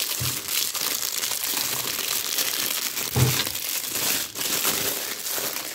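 Packaging crinkling and crackling continuously as it is handled.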